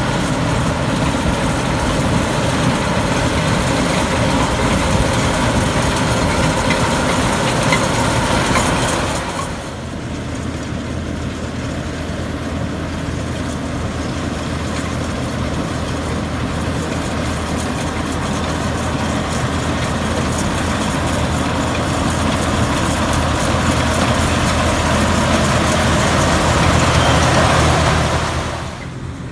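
Rice combine harvester running steadily as it works, its engine a dense, continuous mechanical noise. The sound drops abruptly about ten seconds in, then slowly builds again before falling off near the end.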